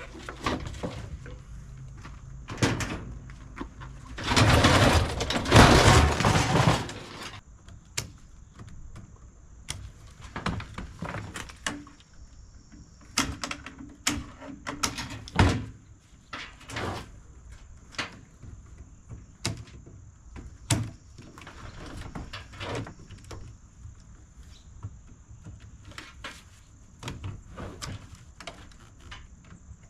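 Clicks, knocks and clanks of metal parts and tools being handled while a clothes dryer is taken apart, with a loud, noisy stretch of about three seconds about four seconds in; birds call in the background.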